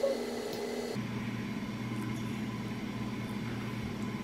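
A steady low mechanical hum with no speech. Its tone changes abruptly about a second in, dropping to a deeper hum that then holds steady.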